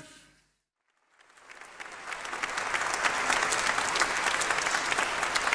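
Audience applauding: after about a second of silence the clapping swells in and holds steady.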